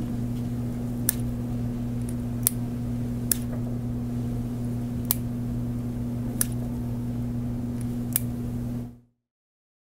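About six light, irregularly spaced plastic clicks as an LC Uniboot fibre-optic connector is pulled out of a duplex LC adapter and pushed back in, over a steady low hum. The sound cuts off near the end.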